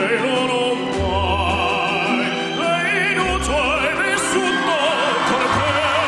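Operatic solo voice singing with wide vibrato over orchestral accompaniment, the melody climbing about three seconds in.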